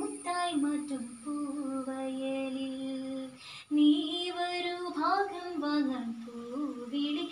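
A girl singing a Malayalam Onam song (Onappattu) solo, in long held notes with a brief break for breath about three and a half seconds in.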